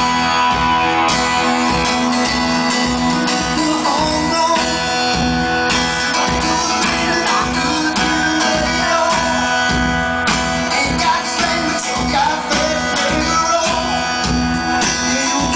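Live rock band playing through a concert PA: acoustic guitar over a steady beat. A male lead vocal sings from about four seconds in.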